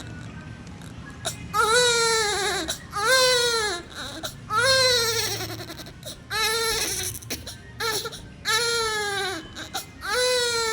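Premature newborn baby crying in a run of short wails, about six of them roughly one and a half seconds apart, each rising then falling in pitch.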